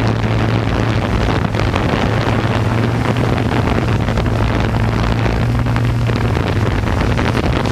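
Electric motors and propellers of a radio-controlled aircraft running steadily with a constant low hum, mixed with heavy wind buffeting on the microphone.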